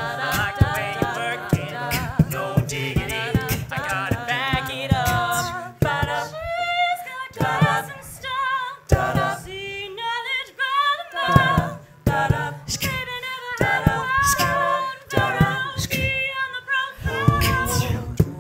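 An a cappella vocal group singing in close harmony, with sharp vocal-percussion clicks throughout. About six seconds in, the sound thins to sparser sung lines over the clicks, and a full chord with deep bass comes back near the end.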